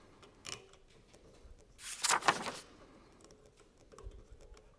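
Small handling sounds of a servo motor being bolted by hand onto a planetary gearbox: a few light clicks and taps, with a louder, brief handling noise about two seconds in.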